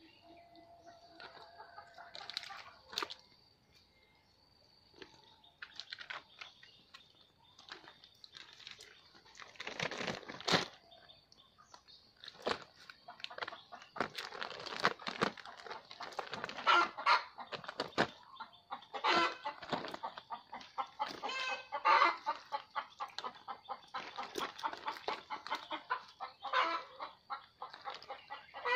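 Farmed frogs croaking: many short, pulsed calls overlapping, sparse for the first few seconds and then growing into a busy chorus.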